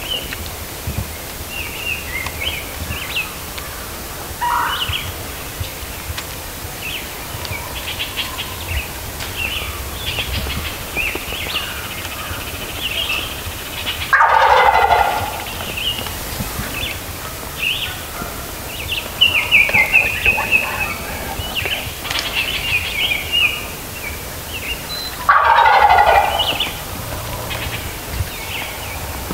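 Wild turkey gobbler gobbling twice, about eleven seconds apart, each a loud rattling gobble lasting about a second. Songbirds chirp and sing throughout.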